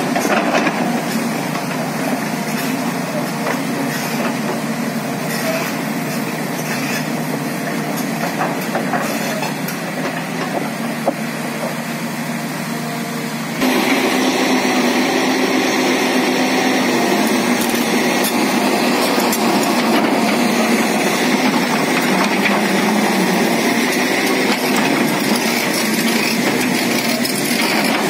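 Hydraulic excavator's diesel engine running steadily under load as it drags a stripped excavator undercarriage, with the steel crawler tracks grinding along the gravel. About halfway through the sound jumps louder and fuller.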